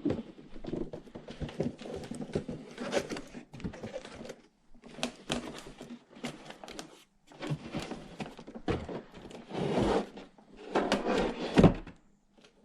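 Cardboard box being opened and a bike mudguard unpacked by hand: irregular rustling, scraping and thunks of cardboard and packaging, with the loudest knock near the end.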